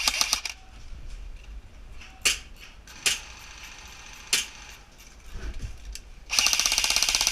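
Airsoft electric gun firing: a short full-auto burst at the start, three single shots spread through the middle, then a longer rapid full-auto burst of about a second and a half near the end. The gun runs on a 7.4-volt battery.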